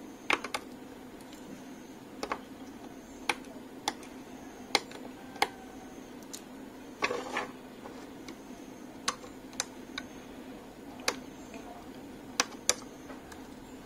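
Cutters snipping the excess leads off freshly soldered resistors on a circuit board: about a dozen sharp clicks at irregular intervals, over a steady low hum.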